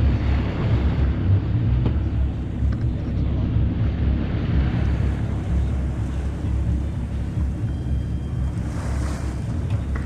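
Sailing yacht under way: water rushing and swishing along the hull in swells every few seconds, with wind on the microphone over a steady low rumble from the yacht's engine ticking over.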